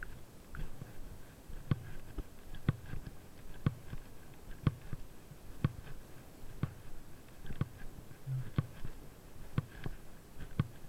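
The turn-signal indicator of a Kymco Downtown 300i scooter ticking evenly about once a second, over a low muffled rumble.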